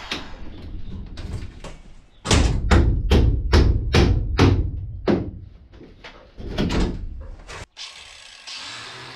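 Hammer blows on a wooden wall stud: a quick run of about a dozen sharp knocks, roughly four a second, then a few more after a short pause.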